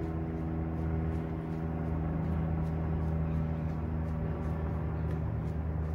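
A steady low machine hum, even and unbroken.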